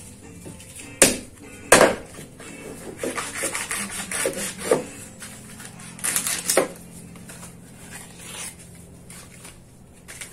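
A long knife chopping and sawing through the stem ends of ears of fresh corn in their husks on a wooden cutting board: two sharp knocks about a second in, then a few rasping cuts through the husks.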